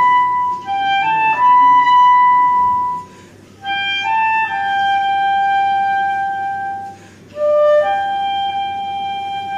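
Background music: a slow solo woodwind melody, each phrase a few short notes settling onto a long held note, with brief breaks about three and seven seconds in.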